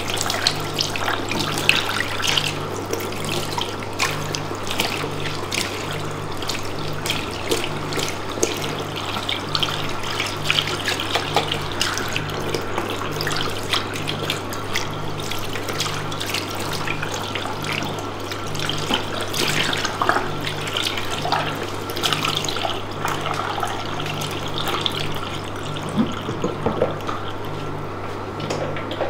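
Tap water running and splashing in a basin, as in a hair wash at a barbershop sink. A steady low hum runs underneath, with a soft low tone pulsing about once a second.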